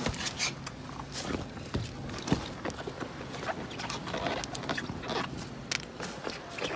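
Thin plastic bag crinkling and small snail shells clicking against each other as a hand handles them in the bag, in irregular short clicks and rustles.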